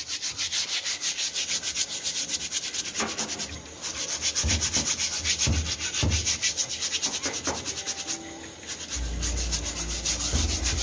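A stiff brush scrubbed fast back and forth over an armadillo's banded shell, an even rasping of many strokes a second, to clean dirt and blood stains off it. A few knocks sound around the middle, and a low rumble comes in near the end.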